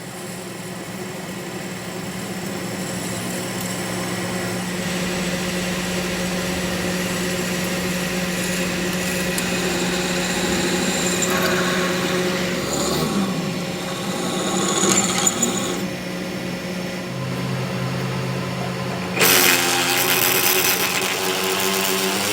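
Workshop machinery running with a steady hum and whine, slowly getting louder. About nineteen seconds in, a louder power tool starts up with a harsher sound.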